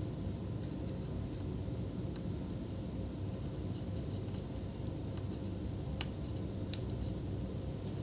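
A steady low rumble of background noise, with a few faint light clicks, the clearest about six seconds in.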